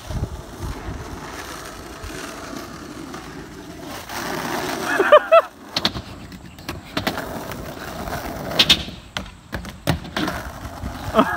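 Skateboard rolling on asphalt, its wheels rumbling steadily, with several sharp clacks of the board and trucks hitting the pavement and ramps.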